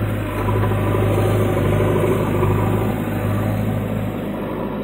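JCB 3DX backhoe loader's diesel engine running steadily as the backhoe arm digs and lifts soil: a loud, low drone that eases slightly near the end.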